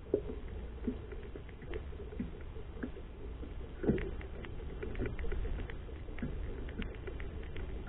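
Water lapping and slapping against the hull of a small boat, with scattered light knocks and taps over a low steady rumble; one louder knock about four seconds in.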